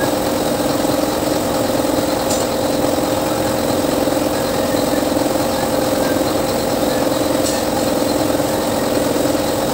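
A motor running steadily: a constant, unchanging hum.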